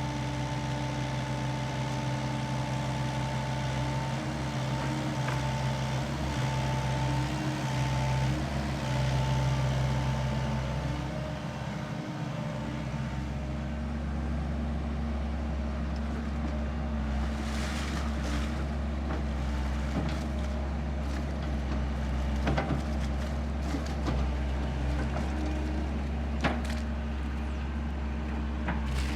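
Sany SY75C excavator's diesel engine running steadily under load as the machine works to pull itself out of soft peat mud. Several short sharp knocks come through in the second half.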